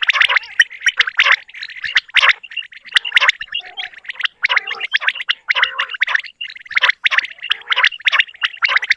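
Quails calling continuously, many short chattering calls overlapping one another, as in a quail call recording played to lure birds for hunting.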